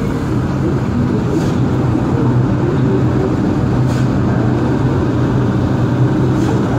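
New York City subway train standing at a station platform, its equipment giving a steady low hum under a wash of station noise, with a few faint clicks.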